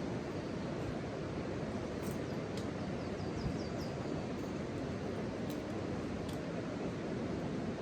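Steady outdoor rushing noise, even and unbroken, with a brief run of faint high chirps about three seconds in and a few faint clicks.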